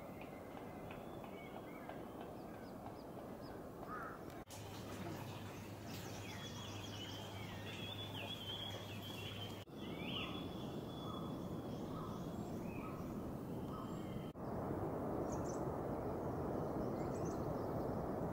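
Outdoor ambience stitched from several short clips: wild birds calling and chirping over a steady rushing noise. In the middle, one bird repeats a short note about five times, roughly every two-thirds of a second. The rushing grows louder in the last few seconds.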